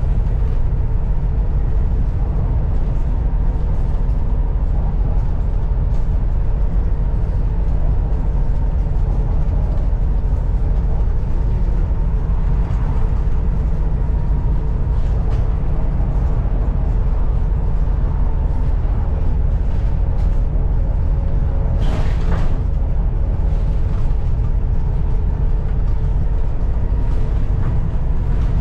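Volvo B7TL double-decker bus's six-cylinder diesel running under way, heard on board: a steady low drone with a constant turbo whistle over it. About 22 seconds in there is a short, sharp noisy burst.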